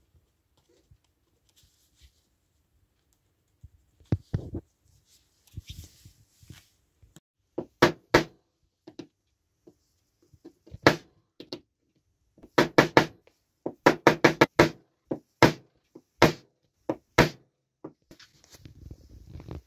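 Sharp metallic taps of a pointed steel tool being struck into a thin copper plate to punch a row of small holes: a few scattered taps, then a quick run of about a dozen, then a few more.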